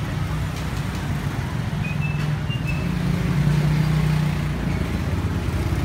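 A running motor hums steadily and low, swelling a little in the middle. A few short high beeps come about two seconds in.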